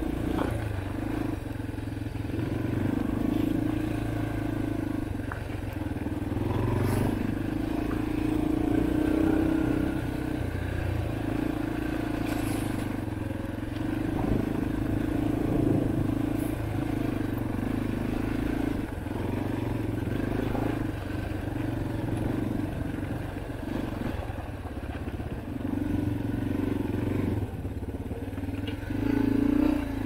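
Yamaha dirt bike engine running under changing throttle on a dirt trail, its note repeatedly rising and dropping every few seconds as the rider rolls on and off through the berms. A few sharp knocks come from the bike over the rough ground.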